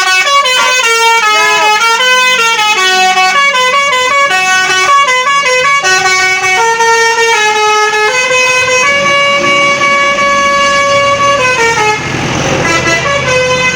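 Bus telolet basuri horn, a multi-tone musical horn, playing a melody of quick stepped notes that settles into longer held notes and stops about twelve seconds in, leaving a noisy background.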